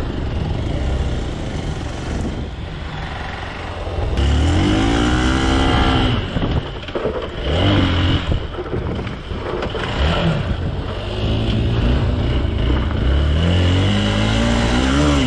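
Motorcycle engine riding off-road, its revs rising and falling several times as the throttle is opened and closed.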